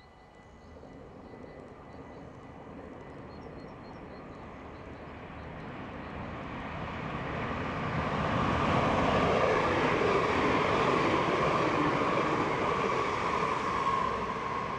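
Dutch NS VIRM double-deck electric intercity train approaching at speed and passing close by: a rush of wheels on rail that grows from faint to loud over about eight seconds and stays loud as the train goes past.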